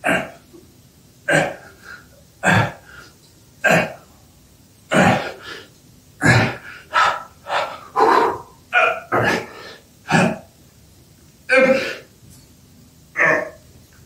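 A man's forceful breaths and grunts of effort, one short burst with each repetition of a prone shoulder exercise. They come about once a second at first, then quicker and more voiced in the middle as the reps speed up, then spaced out again near the end.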